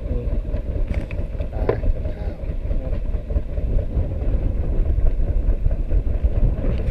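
Small fishing boat's engine idling, a steady low rumble.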